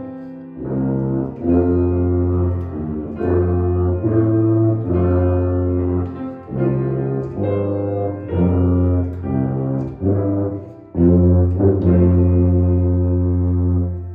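Tuba playing a solo melody in its low register, one note after another, ending on a long held note.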